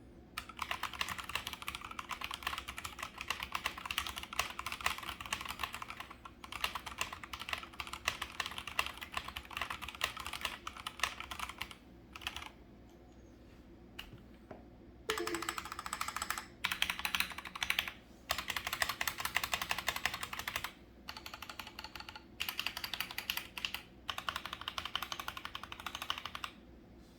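Typing on an Akko 3068B mechanical keyboard with stock Akko CS Jelly Pink linear switches, stock case foam and stock stabilizers: fast runs of keystrokes broken by several short pauses.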